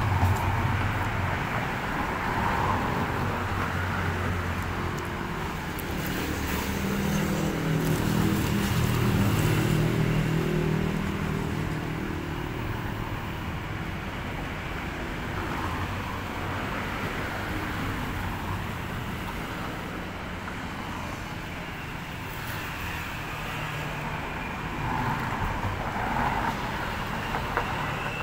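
Road traffic: the steady noise of passing vehicles, with one vehicle's engine louder for several seconds about a quarter of the way in.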